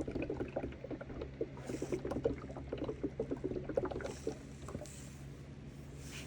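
Water sloshing and gurgling inside a Sunbeam humidifier as it is tipped back to push more water into its filter: a busy run of irregular glugs that dies away about four and a half seconds in, over a steady low hum.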